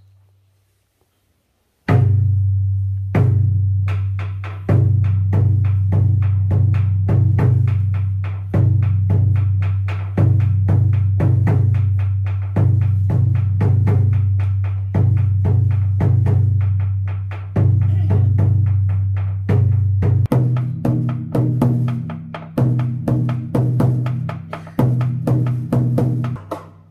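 Ceremonial drum beaten in a long series of single strikes, each one ringing out and dying away, the strikes coming faster over the last several seconds. The drumming follows the reading of the ancestral prayer, marking a stage of the worship rite.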